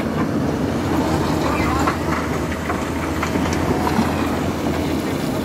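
Cat hydraulic excavator's diesel engine running steadily under load, with rocks clattering and scraping as the bucket works a pile of gravel.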